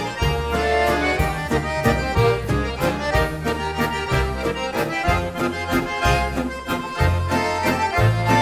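Old-time Swedish dance-band music in 1930s style with no singing: a piano accordion plays the melody over strummed archtop guitar rhythm, upright bass and drums, in a steady beat.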